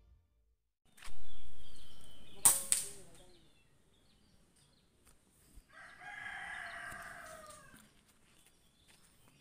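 A rooster crows once, a single drawn-out call of about two seconds starting some six seconds in. Earlier there are two sharp cracks in quick succession.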